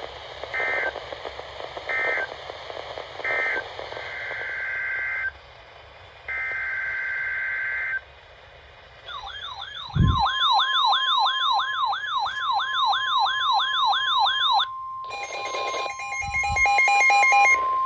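Emergency Alert System tones on a weather radio broadcast: three short digital data bursts, then two longer ones, the coded signal that closes one warning and opens the next flash flood warning. About nine seconds in, a loud wavering siren-like alarm starts, and a steady high attention tone comes in over it. Near the end there is a cluster of rapid electronic beeps, with a brief low thump as the alarm begins.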